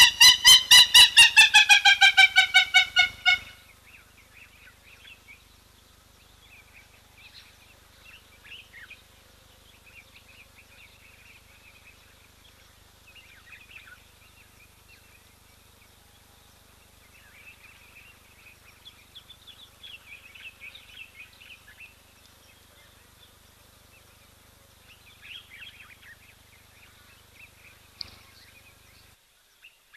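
A bird's loud cackling call: a fast run of harsh notes, several a second, that rises and then falls in pitch and stops about three and a half seconds in. Faint high chirps of small birds follow.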